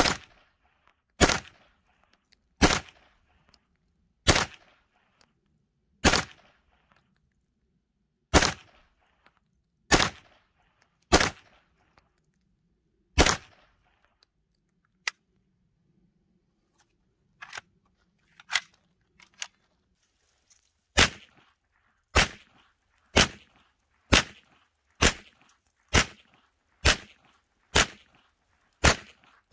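A 9mm PPS-43C pistol firing single semi-automatic shots: about nine spaced a second or two apart, each with a short echo. Then a pause of several seconds with a few faint clicks, and about ten more shots at a steadier pace of about one a second.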